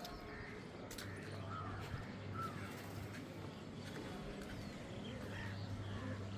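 Birds calling: many short chirps and calls scattered throughout, with a few sharp clicks and a low hum that comes and goes underneath.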